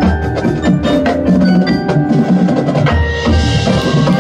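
High school marching band playing: held wind chords over sharp drum and mallet-percussion strikes.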